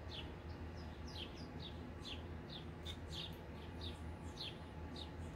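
A small bird chirping: short, falling chirps repeating two or three times a second, over a steady low hum.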